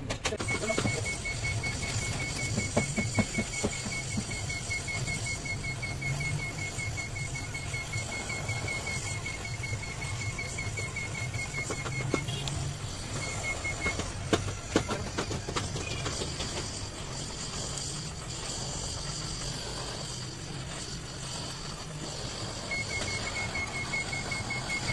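Gas welding torch burning with a steady hiss as its flame is played on a clothes iron's metal body and filler rod is fed in, with a few sharp clicks. A rapid, high-pitched pulsing chirp runs through much of it.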